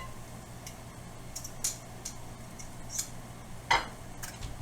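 Scattered clinks and knocks of a skillet and utensils as bacon fat is taken out of the pan, with one louder clank near the end.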